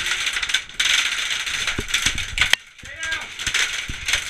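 Airsoft guns firing long full-auto bursts: a fast mechanical clatter of shots in two stretches, broken by a short pause just past halfway.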